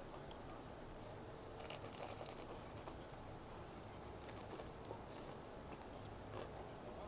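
Faint chewing of food, with scattered crisp crunches and clicks and a short run of crunches about one and a half seconds in.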